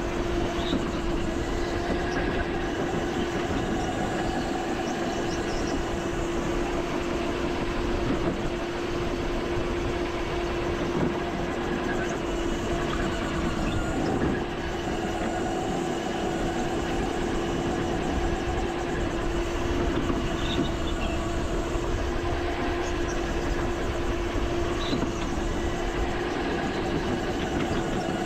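Go-kart running on the track during a race: a steady, unbroken drone with one constant tone that holds its pitch throughout.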